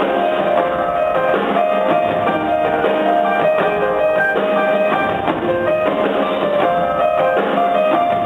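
Live band music in a concert hall, heard from the balcony: a busy run of short, steady keyboard notes over a band.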